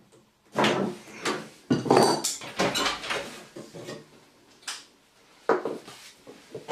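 Metal hand tools clinking and clanking: water-pump pliers and an adjustable spanner working a compression elbow off a copper pipe, then being set down on wooden floorboards. A run of separate knocks, busiest in the first half.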